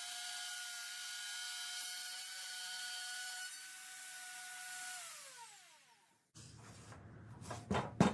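Electric router's motor running at speed with a steady high whine, then switched off about five seconds in, its pitch falling as it spins down. Near the end, a few sharp knocks and clatter.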